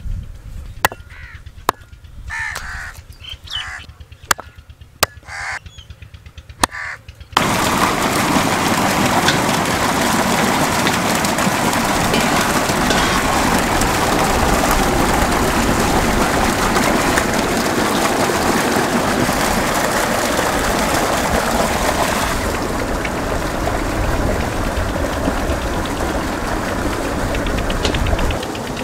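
Water gushing steadily from a pipe outlet and splashing onto steel basins and the ground while chicken pieces are washed under it. It starts abruptly about seven seconds in, after a few bird calls and sharp clicks.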